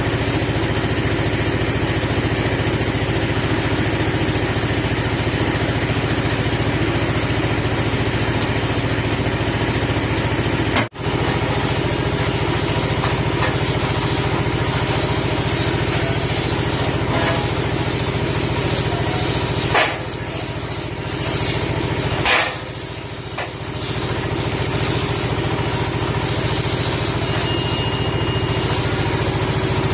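A steady engine-like machine drone with a low hum, running on without change. It breaks off for an instant about eleven seconds in and dips briefly twice, near twenty and twenty-two seconds.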